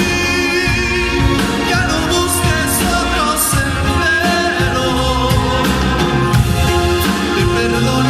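A singer singing with a band, the voice over a steady beat and backing instruments.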